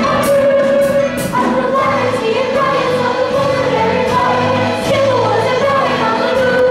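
Stage-musical cast singing together in chorus over instrumental backing, many voices holding sustained, shifting notes.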